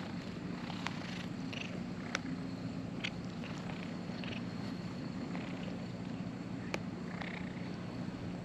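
Cats purring steadily, close up, with a few short sharp clicks over the purr.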